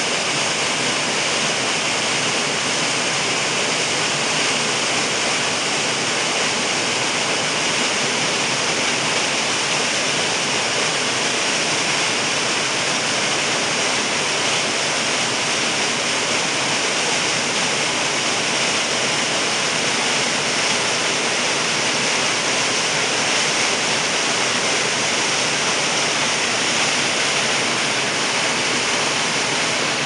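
Creek waterfall pouring over a rock ledge into a churning pool: a loud, steady rush of falling water.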